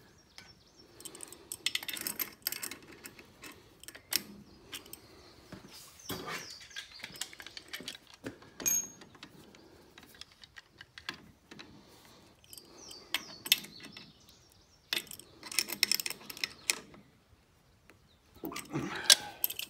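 Metal hand tools clinking and scraping as an adjustable wrench and pliers work a hydraulic hose fitting on an excavator thumb cylinder, in irregular clusters of short clicks with quiet gaps between.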